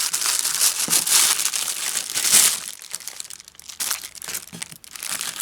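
Parcel packaging crinkling and crackling as it is handled and opened. The crinkling is densest and loudest for the first two and a half seconds, then thins to scattered crackles.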